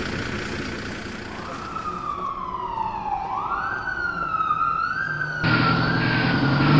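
Fire engine siren wailing. Its pitch falls, swoops back up, wavers, then slides slowly down. About five seconds in, a louder vehicle rumble cuts in suddenly under it.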